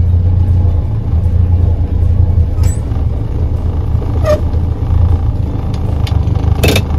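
Morris Minor's engine running steadily with a low drone while the car drives slowly, heard from inside the cabin. A few short ticks sound over it, the loudest near the end.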